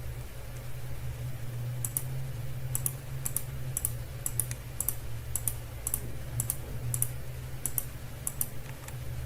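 Computer mouse clicking, about a dozen sharp clicks, many as quick double clicks, spaced roughly half a second apart, starting about two seconds in, over a steady low hum.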